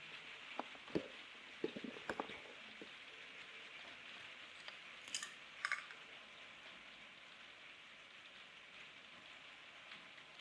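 Faint scattered clicks and light taps of small parts being handled: a cluster in the first three seconds, then two sharper ticks about five seconds in, over a steady hiss.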